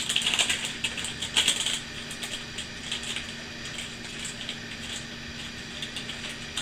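Parchment paper crinkling and crackling as it is handled while meatloaf mixture is pressed into the lined loaf pan by hand; busiest in the first two seconds, then lighter scattered crackles.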